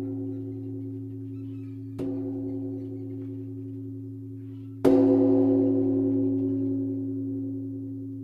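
Large bronze Buddhist temple bell (beomjong) of Sangwonsa ringing with a deep, long hum, struck again about two seconds in and once more, loudest, about five seconds in. Each strike adds a sharp attack over the low ringing, which then fades slowly.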